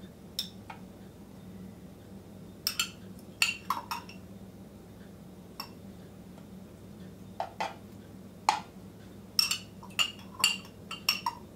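Small clicks and clinks, a dozen or so scattered irregularly, some in quick pairs, from maraschino cherries being picked out of a glass jar and set into the plastic tray of a cherry-tomato slicer. A faint steady low hum runs underneath.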